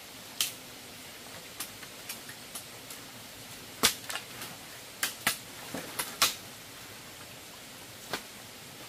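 About a dozen sharp, irregular cracks and pops over a steady hiss, the loudest bunched together in the middle.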